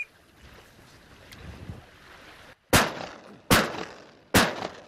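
Three shotgun shots in quick succession, about three-quarters of a second apart, each ringing out briefly. A faint hiss of wind and lapping water comes before them.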